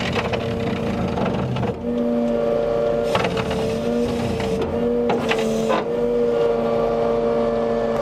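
A volumetric concrete mixer truck running, its engine and hydraulics giving a steady hum. A couple of short clatters come about three and five seconds in.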